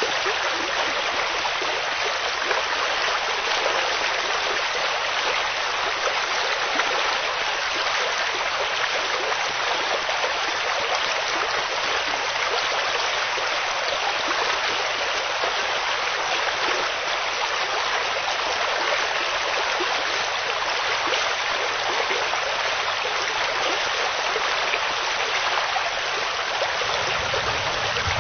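Steady, heavy rain: an even, unbroken hiss with no separate drops standing out. A low rumble begins right at the end.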